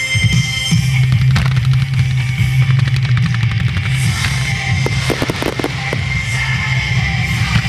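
Fireworks bursting and crackling over loud rock music, with a dense run of rapid crackles about five seconds in.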